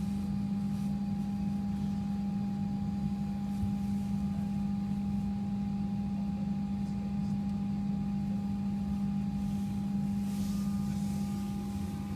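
Passenger jet cabin noise: a steady drone with a strong low hum and a fainter higher whine held throughout, easing slightly near the end.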